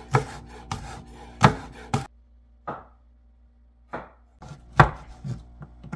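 Kitchen knife chopping vegetables on a cutting board: about eight separate, unevenly spaced knocks, with a lull of over a second between about two and four seconds in.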